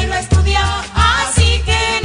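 Music with a heavy bass beat about two and a half beats a second under a pitched melody line.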